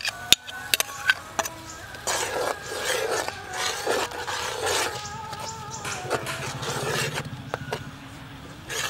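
Metal spoon stirring and mashing wet grated coconut in an aluminium pot: wet squelching and scraping, with sharp clicks of the spoon against the pot near the start.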